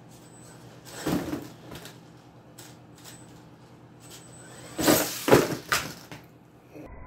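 Mini RC monster truck knocking and clattering on a hard floor: one sharp knock about a second in, then a quick series of louder knocks around five seconds in, with a faint high electric whine on and off between them.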